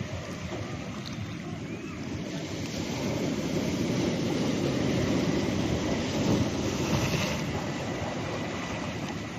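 Ocean surf breaking and washing over a rocky reef: a continuous rushing that swells about halfway through and eases again. Wind buffets the microphone.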